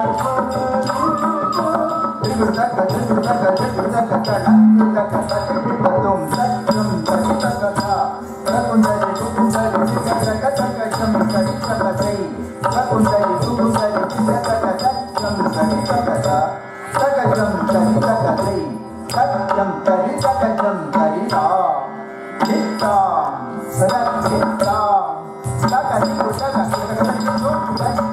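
Live Carnatic dance accompaniment for a Bharatanatyam jatiswaram: a melody with gliding ornaments over a steady drone, driven by hand-drum strokes.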